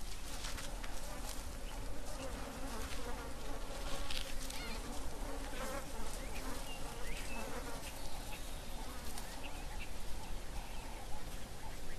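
Insects buzzing steadily, with a few short, faint bird chirps now and then.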